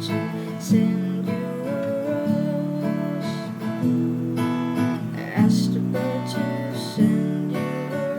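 Acoustic guitar strumming chords, a fresh strum every second or two with the chord changing, in the wordless close of a song.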